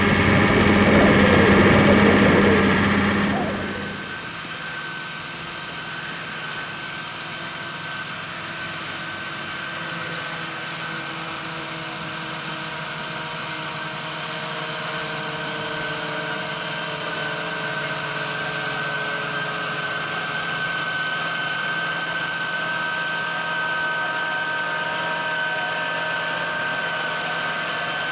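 Farm tractor engines working: a loud, close machine engine for the first three seconds or so, which drops off suddenly, then a steadier New Holland tractor engine running under load, with a thin steady whine over it, slowly growing louder toward the end.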